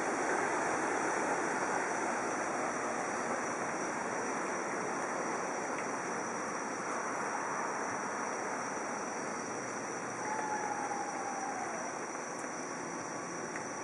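Steady rushing of water during a flash flood, an even wash of noise that eases slightly over the seconds.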